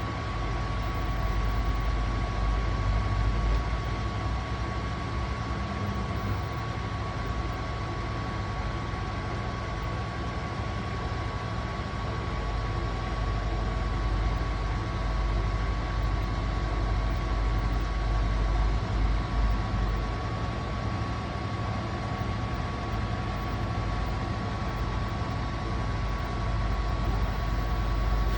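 Asko washing machine in its final spin: the drum and motor run with a low rumble that swells and eases, over a steady high whine that is the weird noise.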